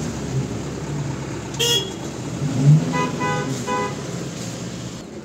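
Street traffic: a vehicle engine running with a low rumble, and a car horn giving three short toots, one about a second and a half in and two close together about three seconds in.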